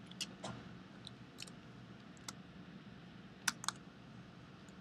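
Computer keyboard and mouse clicking: about eight short, sharp clicks spread unevenly, the loudest pair about three and a half seconds in, over a faint steady hum.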